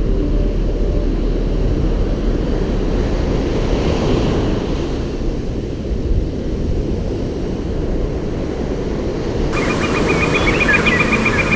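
Sea surf washing on the shore, heard as a steady low rumble with wind buffeting the microphone. Near the end the sound abruptly brightens, adding a higher hiss and faint high-pitched tones.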